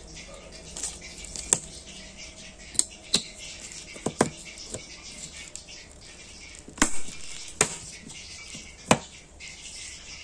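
Sharp plastic clicks and knocks from a small AVC 60 mm fan being handled as its impeller is pushed back onto the motor shaft and snapped into place, about ten clicks at uneven intervals, the loudest about seven seconds in.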